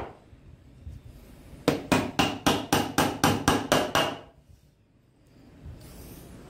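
Hammer driving a small nail into a wooden strip on a hardboard panel: about a dozen quick, even blows, about five a second, starting a second and a half in and stopping about two seconds later.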